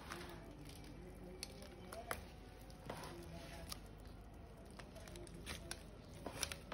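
Scattered light clicks and soft wet handling sounds as a large raw mrigal carp is gripped and turned by hand, with faint voices in the background.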